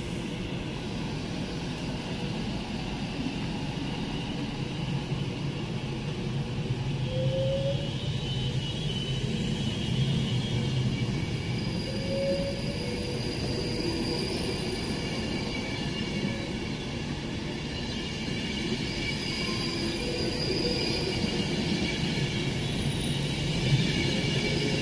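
Avanti West Coast Class 390 Pendolino electric train rolling past the platform: a steady rumble of wheels on rail, with faint high squealing tones from the wheels.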